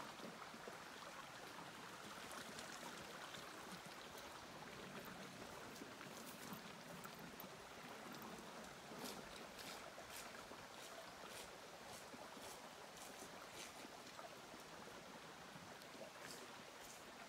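Creek water flowing, a faint steady rush, with scattered light clicks over it.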